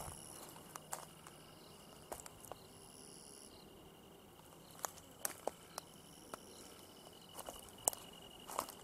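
Irregular soft crunching footsteps on a wood-chip garden path, with a thin, steady high-pitched insect drone behind them.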